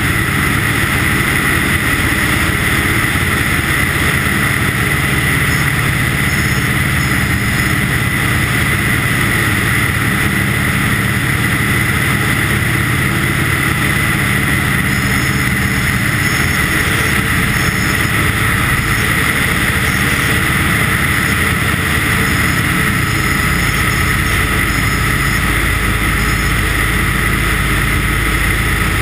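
Light aircraft's engine running steadily in flight, mixed with wind rushing over an externally mounted microphone; the sound stays loud and even throughout.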